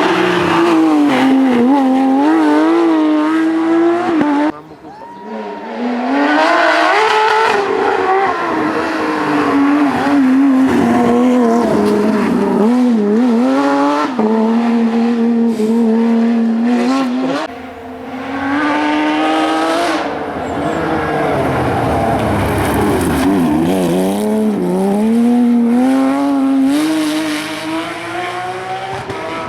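Porsche 997 GT3's flat-six racing engine at speed, its note climbing and falling repeatedly as it revs through the gears, with sudden lifts off the throttle about four and a half seconds in and again at about seventeen seconds.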